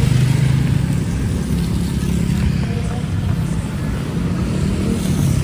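Steady rushing of heavy rain and typhoon wind on a city street, with the low drone of a vehicle engine running underneath.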